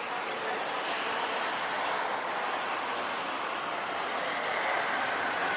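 Jet airliner's engines heard as a steady rushing noise with a faint high whine, slowly growing louder.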